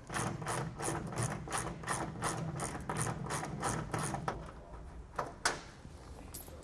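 Ratcheting wrench clicking as it backs out hex-head screws, about five clicks a second, stopping after about four seconds with a few scattered clicks after.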